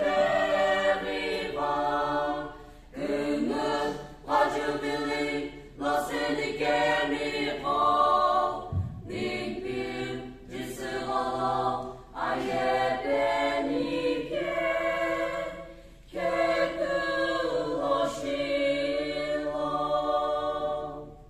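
Mixed choir of men and women singing without instruments, in sung phrases broken by short pauses for breath.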